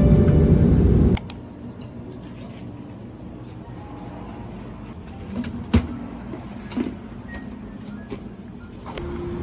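Background music that cuts off about a second in, then a low steady hum broken by a few sharp clicks and knocks, the loudest a little before the six-second mark.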